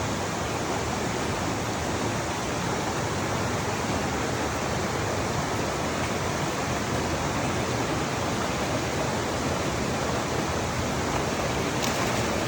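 Steady rushing of flowing water, an unbroken even noise with no rhythm or pitch.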